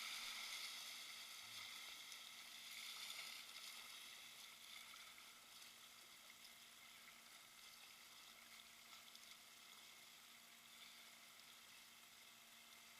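Faint, steady rushing of shallow river water running over rocks, a little louder at first and then easing off.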